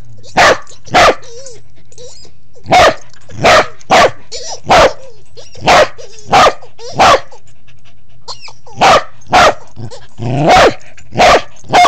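A corgi barking in short single barks, about fourteen in all at uneven intervals, with a few pauses of a second or more between groups.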